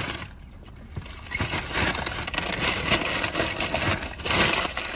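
Close rustling and crinkling with scattered crackles, quiet for about the first second and then busier.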